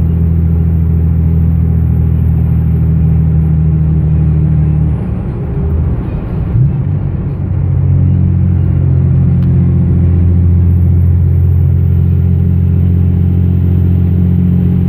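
Dodge Ram's 5.9 Cummins turbo-diesel droning steadily under way, heard from inside the cab. About five seconds in the steady note breaks up and dips for a couple of seconds, then settles back to an even drone.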